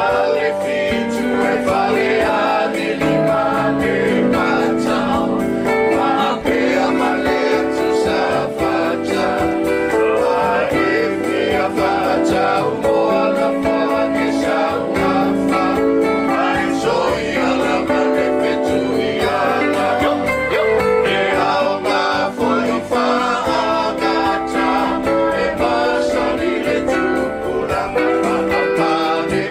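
Samoan song performed live: voices singing together over guitar, with a steady strummed beat.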